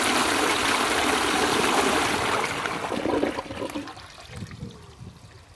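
A restored cast-iron high-level cistern flushing: water rushes steadily down into the pan, then dies away after about three and a half seconds to a faint trickle.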